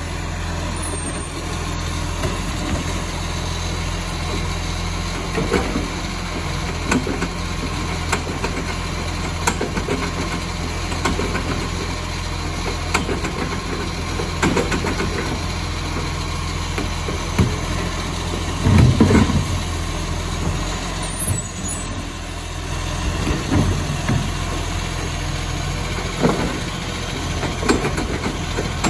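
Side-loading garbage truck's diesel engine running steadily while its hydraulic arm lifts and tips wheelie bins, with clunks and knocks from the arm and bin every few seconds. The loudest is a thud about nineteen seconds in.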